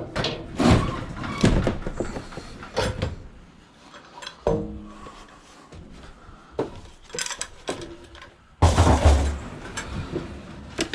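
A scrap washing machine being manhandled into a van: a run of metal knocks and scrapes, a short ringing clang about four and a half seconds in, and a heavy thud, the loudest sound, near the end as it drops into place.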